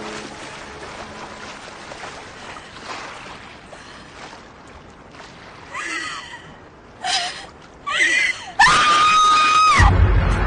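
Steady rush of sea waves, then a woman cries out in distress: three short sobbing cries, then one long held scream, the loudest part. Low background music comes in near the end.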